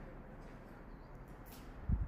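Quiet hiss of an empty room, with a faint click about one and a half seconds in and a short low thud near the end.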